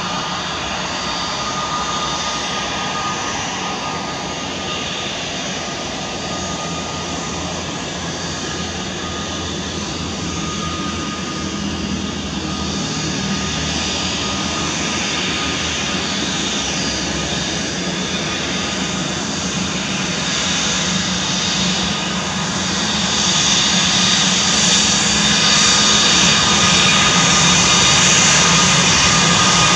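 Airbus A320-214's CFM56-5B turbofans at low taxi thrust: a steady jet whine with a constant high tone, growing louder as the airliner taxis closer along the runway.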